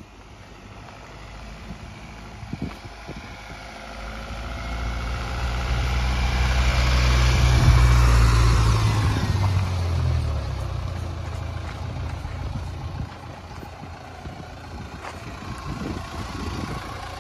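Mahindra Thar CRDe's diesel engine and tyres on a dirt track as the vehicle approaches and passes close by, growing louder to a peak about eight seconds in. It then settles to a lower, steady running sound as it moves slowly alongside.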